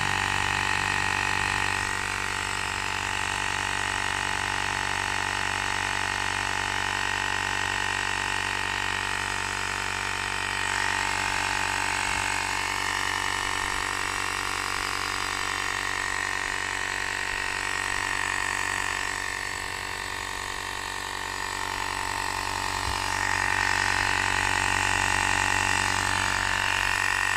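VEEAPE cordless portable air compressor running steadily while inflating a car tire, a constant motor buzz with a slightly wavering level. It cuts off abruptly at the end.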